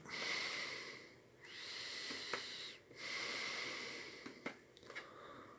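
A man with a cold breathing audibly: three long breaths of a little over a second each, then quieter.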